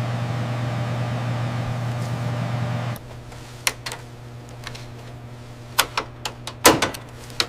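A steady mechanical hum that stops suddenly about three seconds in, followed by a scatter of sharp clicks and knocks, the loudest a quick cluster near the end.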